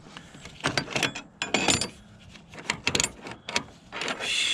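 Metal hand tools clinking and clattering in a string of irregular sharp clicks, with a brief rustle near the end.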